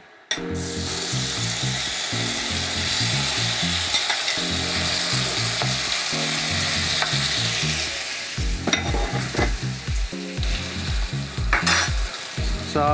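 Steady sizzling hiss from a wok heating up on high, starting abruptly just after the beginning, with a few knocks in the second half.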